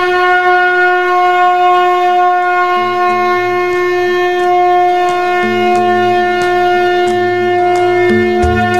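Music built on one long, steady blown horn note, conch-like, held at a single pitch throughout. A low, pulsing drone joins about three seconds in, with faint regular ticks.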